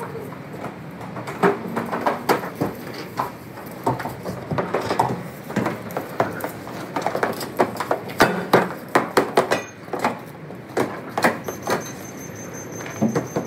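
Self-serve car wash foam brush being worked over a car's roof and handled on its hose, giving irregular knocks, clatter and scrubbing noise. A faint steady high whine comes in near the end.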